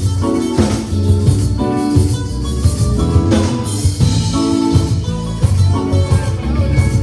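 Live conjunto band playing loud: accordion, electric guitars, bass and drum kit, with cymbal crashes about a second in and again just past three seconds.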